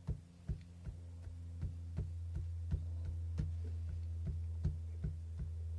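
Quick regular taps, about three a second, as the edge of a small encaustic painting iron is dabbed on waxed card to draw grasses, over a steady low mains hum.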